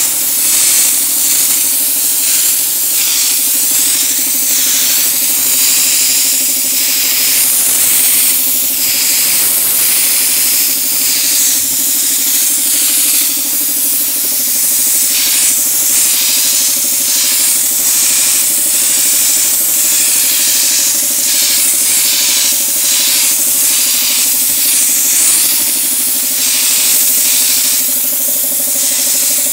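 Air spray gun hissing in short, repeated bursts as it sprays a textured grey coating onto a loudspeaker box, over a steady low hum.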